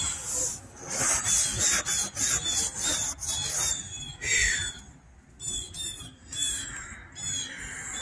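Fingers scraping and rubbing through frost on a pickup truck's windshield, a quick scratchy rubbing over the first half. Repeated short, high, falling chirps follow in the second half.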